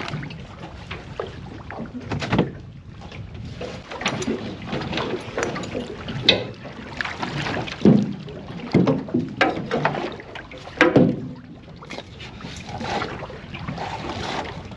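Irregular knocks, clunks and rustling of gear being handled in a small boat, over a low steady background rumble, with a few louder knocks scattered through.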